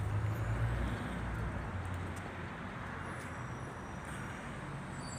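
Steady city street noise of road traffic, with a low rumble that eases after the first couple of seconds.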